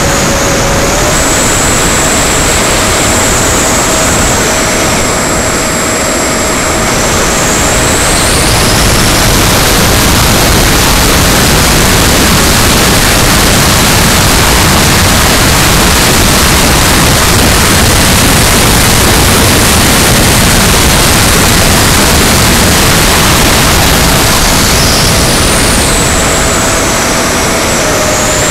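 Electric ducted fan of a 70mm Freewing Yak RC jet running in flight, heard from a camera on the tail fin under heavy wind rush over the microphone. The fan's whine steps up about a second in, is buried under louder rushing air from about nine seconds, then re-emerges and drops back near the end as the throttle changes.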